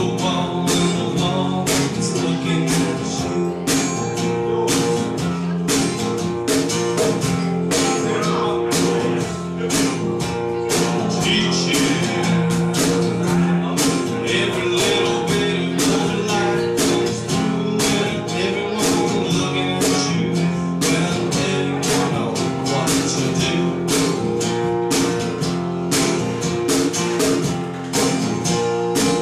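Live acoustic song: a strummed acoustic guitar with a cajón hand-drummed in a steady beat of about two hits a second, and a voice singing over them.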